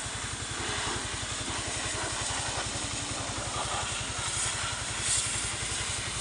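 Engine-driven high-pressure washer running, its engine and pump giving a steady rapid low pulsing under the hiss of the water jet spraying caked mud off a truck's underside.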